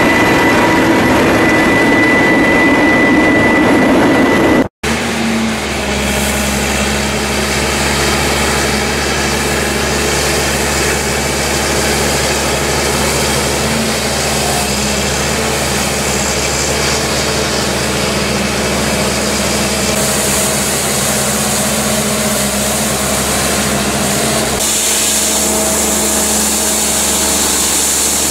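A rotary snowplow truck running with a steady high tone, then after a brief cut a steady engine hum and the hiss of a snow blower attachment throwing snow out from between rail tracks.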